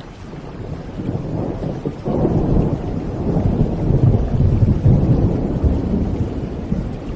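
Rolling thunder over steady rain. The deep rumble swells suddenly about two seconds in and stays heavy through the middle.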